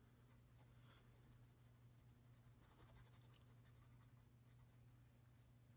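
Near silence: the faint scratch of a Sharpie marker being drawn along lines on paper, over a low steady hum.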